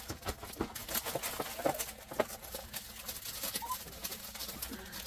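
Plastic-packaged scrapbook embellishments being handled and laid into clear plastic storage bins: packaging crinkling with light, irregular taps and clicks.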